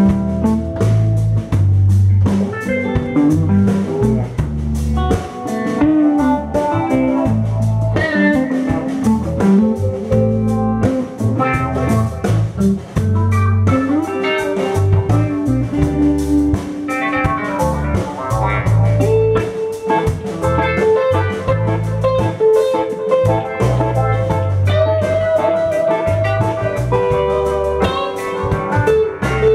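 Live band playing an instrumental blues-rock jam: electric guitars with held and bending notes over a keyboard, a drum kit keeping a steady beat and strong bass notes.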